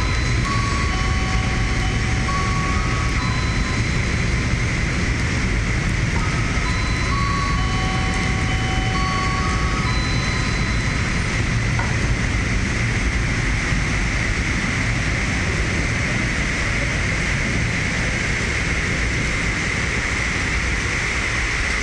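Container freight train rolling past, a steady roar of wheels on rails. Thin high squeals from the wheels come and go through the first half.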